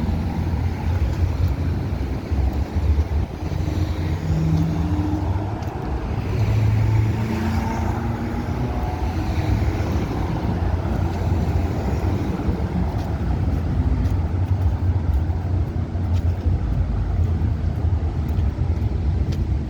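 Busy city street ambience: steady traffic noise with a continuous low rumble of passing cars.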